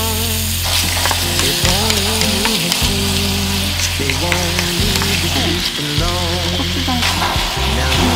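Squid stir-frying in a carbon steel frying pan: a steady sizzle that grows louder about a second in, with a wooden spoon scraping and clicking against the pan. Background music plays underneath.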